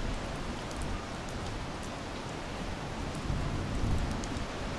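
Steady rain falling on the garden and paved path, with scattered drop ticks over a low rumble underneath.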